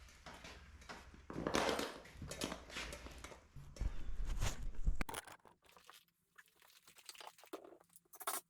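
Irregular scraping, rustling and knocking as timber and tools are handled. The sound cuts off abruptly about five seconds in, followed by a few faint clicks and knocks.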